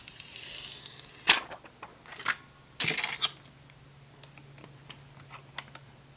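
Protective plastic film being peeled off, a hissing tear lasting about a second. A loud sharp click follows, then a few lighter clicks and ticks of small parts being handled.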